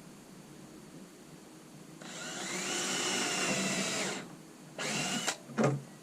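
Cordless drill driving a screw: the motor spins up with a rising whine for about two seconds, then stops, followed by a second short burst. The drill's battery is getting ready to go dead, by the owner's account. A brief knock near the end.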